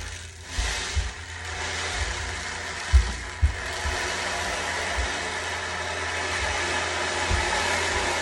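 Ocean drum beads washing back and forth like surf over the steady ringing tones of a sound bowl. Several dull low thumps at irregular times are children running on the floor upstairs.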